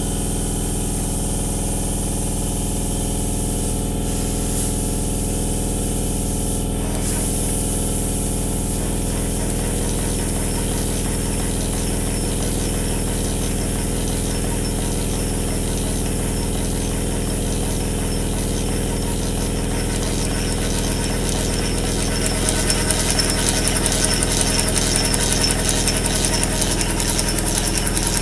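Model traction steam engine running on compressed air, driving a crossed flat belt over its flywheel pulley, over a steady hum and hiss from the air compressors feeding it. About three-quarters of the way through, a fast rhythmic ticking comes up louder.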